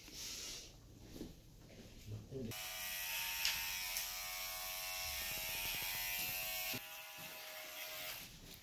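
Electric hair clippers running with a steady buzz. The buzz starts about two and a half seconds in and cuts off near seven seconds.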